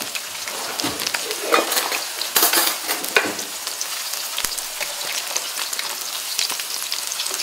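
Breaded chicken breasts frying in hot oil: a steady sizzle full of small crackling pops, with a metal spatula moving them in the pan and a louder spell of sizzling about two and a half seconds in.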